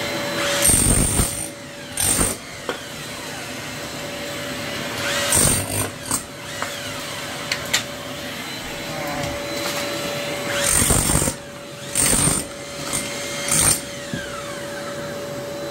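An electric chisel hammer runs in about six short bursts as its flat blade chips rotten wooden floorboards off the concrete slab. Under it a dust-extraction vacuum, hosed to the tool, runs steadily with a constant hum.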